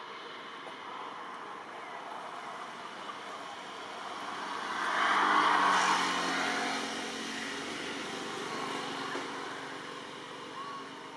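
A passing engine, its noise swelling to a peak about halfway through and then fading away.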